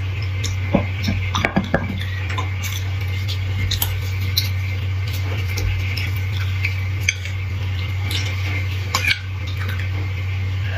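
Small metal spoon clinking and scraping inside a hollow marrow bone as the marrow is scooped out and eaten, in a run of small irregular clicks over a steady low hum.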